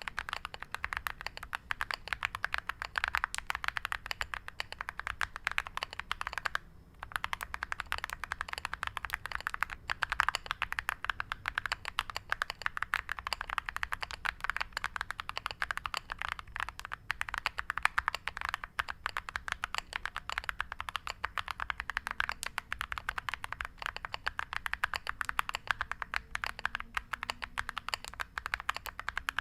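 Steady, fast typing on a Monka Alice67 Pro mechanical keyboard with Akko V3 Creamy Purple Pro tactile switches and dye-sub PBT MOG-profile keycaps: a dense stream of keystroke clicks, with a brief pause about seven seconds in.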